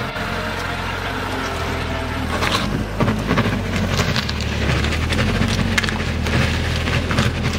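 BMW 335i's turbocharged straight-six running at low speed. From about two seconds in, a rapid irregular crackle of sharp clicks comes from the rear tyres as they scrub and skip, as a welded differential forces both rear wheels to turn at the same speed while the car manoeuvres.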